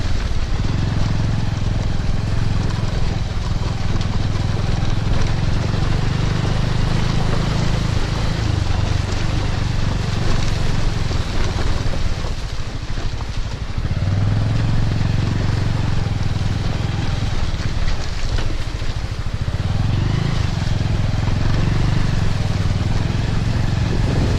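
Motorcycle engine running as the bike climbs a muddy, snowy track, under wind and road noise. The engine note fades back about nine seconds in, then picks up again with a brief rise around fourteen seconds and once more near twenty seconds.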